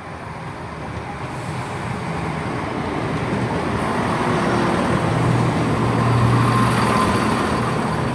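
CrossCountry Class 170 Turbostar diesel multiple unit pulling into the platform, its engine hum and running noise growing steadily louder as it approaches. A brief thin squeal comes about six or seven seconds in.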